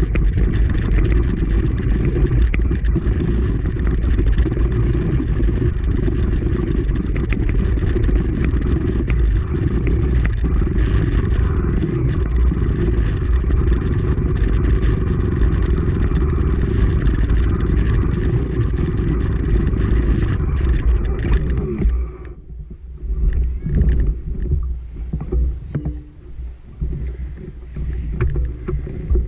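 Honda CRF250F dirt bike's single-cylinder four-stroke engine running on a trail ride. About three-quarters of the way through, the engine sound cuts off suddenly, leaving uneven low rumbling.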